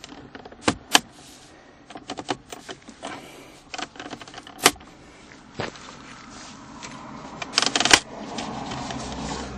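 Plastic center console trim of a 2009 Toyota Corolla being pressed back into place, its clips and tabs snapping in with a series of sharp clicks: two loud ones about a second in, scattered clicks in between and a rapid cluster near the end.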